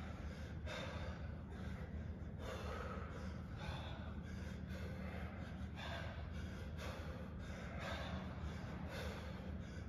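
A person breathing hard from exertion: a steady run of heavy breaths, roughly one a second, over a low steady hum.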